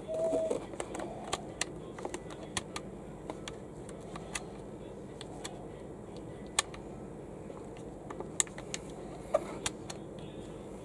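Sharp plastic clicks, irregularly spaced, as fingers press and slide the code pieces in the secret-code lock of an L.O.L. Surprise Under Wraps capsule, trying a combination to open it.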